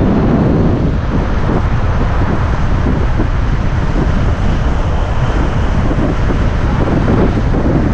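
Loud wind buffeting the microphone over steady vehicle and road noise.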